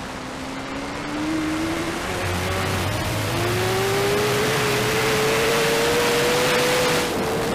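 Racing motorcycle engine pulling hard on track. Its pitch rises steadily, drops briefly about three seconds in at a gear change, then climbs again and holds high, over a steady rushing noise.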